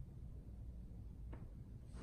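Quiet room tone with a steady low hum, and a single faint click about a second and a half in.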